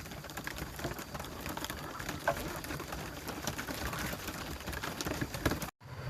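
Ducks giving short, soft calls amid scattered rustling, scuffling and clicks.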